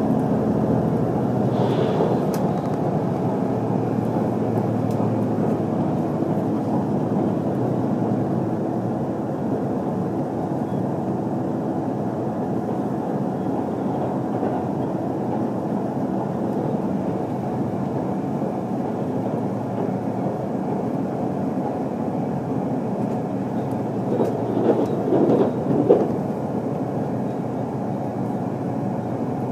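HC85 hybrid diesel train running at speed, heard from inside the passenger car: a steady rumble of wheels and running gear with an underlying hum. A few brief louder sounds come near the end.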